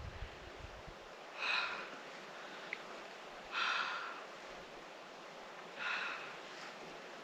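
A person breathing hard: three heavy breaths about two seconds apart over a faint steady hiss.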